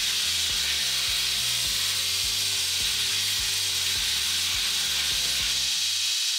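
A power tool shaping the profile of a twist-Damascus steel knife blank, making a steady high hiss. It plays over background music with a bass line and an even beat.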